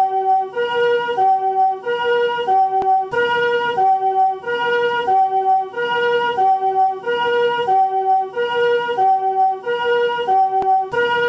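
Japanese ambulance two-tone 'pee-poh' siren of the newer chord (comfort) type, steadily alternating between a higher and a lower note, each held about two-thirds of a second. Each note sounds as a soft chord rather than a single beep.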